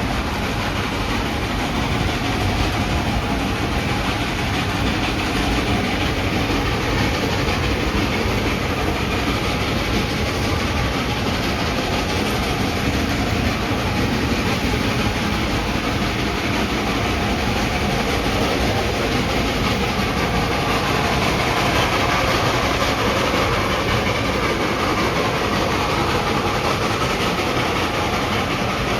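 Excursion train running steadily, heard from on board: the continuous, even noise of the moving train and its cars on the track.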